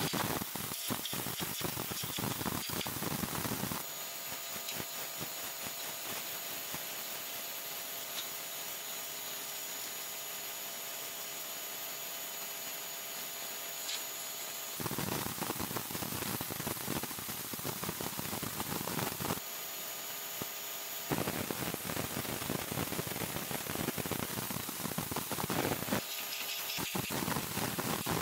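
A Simoniz 1800 PSI electric pressure washer's jet spraying onto a concrete patio slab, a steady hissing rush of water. For about ten seconds from around four seconds in, and again briefly later, the rush thins out and a faint steady whine shows through.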